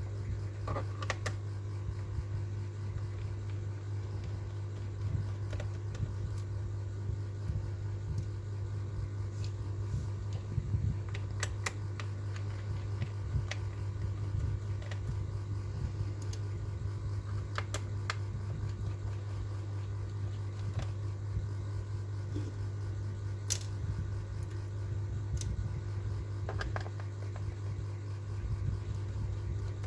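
Scattered light clicks and taps, a dozen or so spread irregularly, over a steady low hum.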